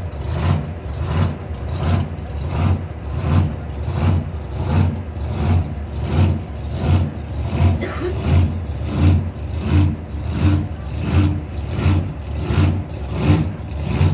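Big V8 drag-race engine idling with a heavy, lumpy lope, swelling and falling about one and a half times a second.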